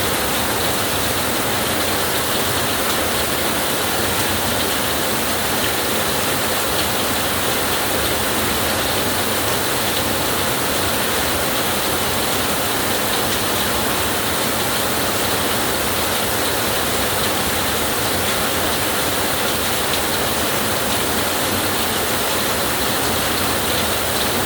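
Steady heavy rainfall, an even hiss that holds unchanged throughout, with no thunder claps.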